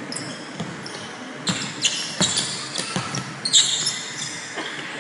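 Pickup basketball on a hardwood court: a ball thuds on the floor at uneven intervals and sneakers squeak sharply on the boards, loudest about three and a half seconds in.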